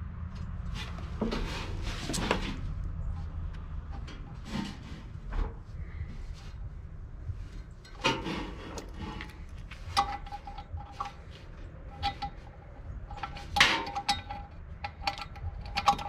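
Light metal clinks and taps of a hand tool against a furnace blower wheel and its sheet-metal housing as the wheel is secured on its motor shaft, several ringing briefly. The clinks are scattered, with a few louder strikes in the second half.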